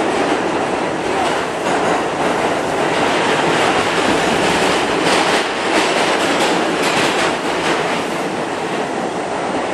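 New York City subway car running through a tunnel, heard from inside the car: a steady, loud rumble of wheels on rail, with a run of clacks over rail joints about halfway through.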